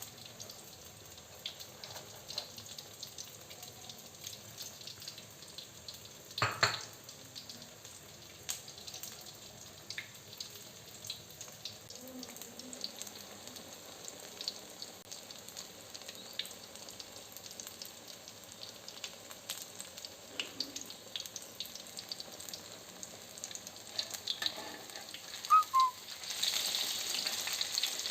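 Flour-battered tempe frying in hot oil, sizzling and crackling steadily. A single loud knock comes about a third of the way through, and the sizzling grows louder near the end.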